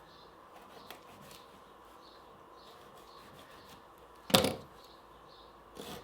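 A pocket knife's serrated edge cutting rope: a faint click, then one short, loud scrape about four and a half seconds in, and quick repeated sawing strokes starting near the end. The teeth hook in the rope rather than slicing smoothly.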